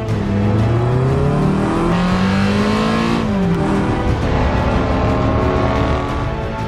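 Car engine sound effect: the engine revs up with a steadily rising pitch, drops sharply in pitch about three seconds in as it passes by, then runs on steadily.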